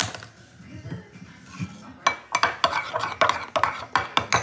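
A spoon stirring slime mixture in a bowl, clacking against the bowl's side in a quick run of knocks, about five a second, from about halfway through.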